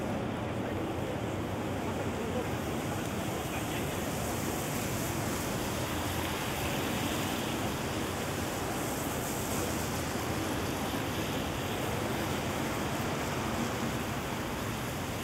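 Steady hiss of rain falling on a wet city street, an even wash of noise without distinct events.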